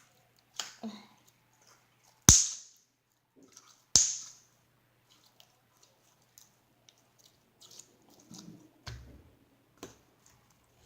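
Slime being squeezed and stretched by hand, with two sharp pops about two and four seconds in and small clicks and squishes between.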